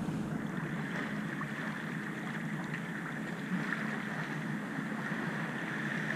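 Steady rush of wind and water past a sailboat under sail, with wind noise on the microphone.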